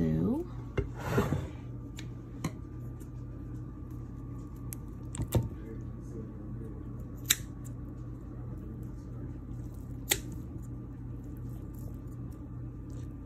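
Butcher's twine being cut off a roast beef: a few scattered sharp snips and clicks, several seconds apart, over a steady low background hum.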